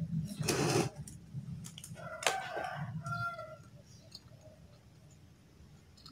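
A chicken calling twice, a short call then a shorter one about two to three seconds in, after a brief rustle near the start.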